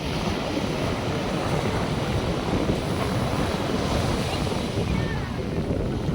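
North Sea surf washing onto the beach in a steady wash, with wind rumbling on the microphone.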